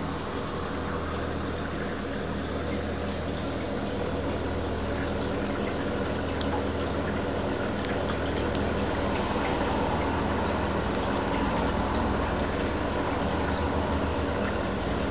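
Reef aquarium's pumps and water flow running steadily: a low electrical hum under a constant wash of moving water. A single sharp click about six seconds in.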